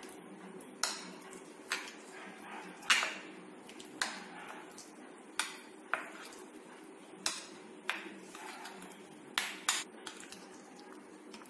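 A spoon clinking against a bowl about ten times at irregular intervals as a yogurt spice paste is mixed. Each knock rings briefly over a faint steady hum.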